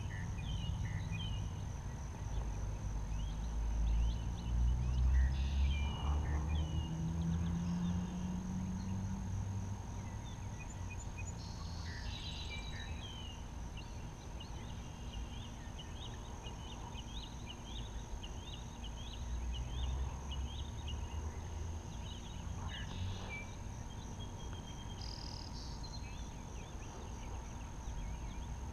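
Outdoor ambience: a low wind rumble on the microphone, strongest in the first third, with small birds chirping on and off throughout and a steady faint high-pitched whine.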